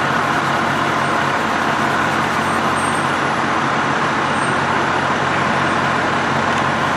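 Idling diesel engines of fire trucks running steadily, a constant low hum under an even wash of engine and pump noise.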